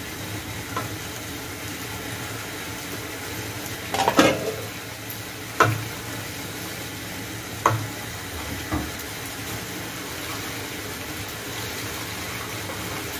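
Onion and tomato masala sizzling in oil in a nonstick frying pan while a silicone spatula stirs it, with a few short scrapes and knocks of the spatula on the pan, the loudest about four seconds in. The oil has separated and risen to the top, the sign that the masala is fully fried.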